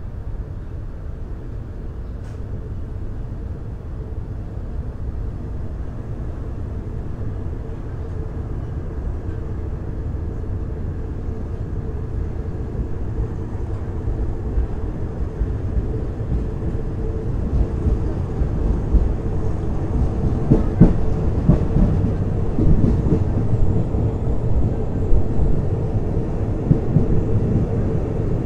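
Passenger train running, heard from a rider's seat in a third-class carriage: a steady low rumble of wheels on rails with a faint held hum, growing gradually louder, with more knocking and jolting from about two-thirds of the way in.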